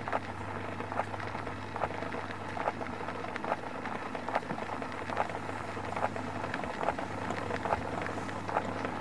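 Electric gramophone with a record on the turntable, crackling with no music: irregular clicks and surface hiss over a steady low hum.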